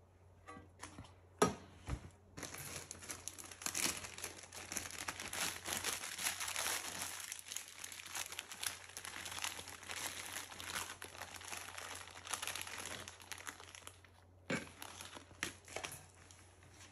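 A clear plastic bag crinkling and rustling for several seconds as a sheet of ceramic insulation is pulled out of it. A sharp knock sounds just before, and a few light clicks near the end.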